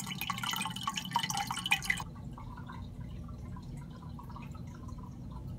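Aquarium filter's outflow splashing and dripping into the tank over a steady low pump hum. The splashing drops away about two seconds in, leaving the hum and a faint trickle.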